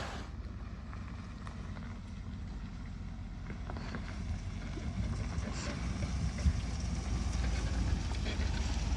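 Truck driving on a dirt forest trail: a steady low engine and road rumble with scattered small knocks and ticks, slowly getting louder.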